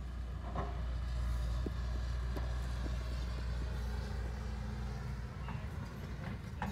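Hydraulic excavator's diesel engine running steadily with a low drone, with scattered knocks of soil and rock being moved. The drone eases slightly about five seconds in.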